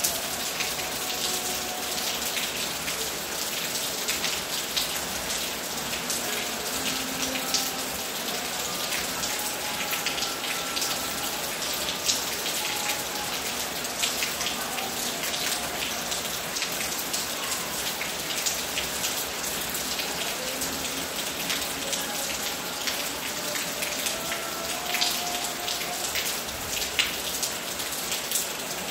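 Steady rain falling, with many sharp drop hits close by over an even background of rain noise.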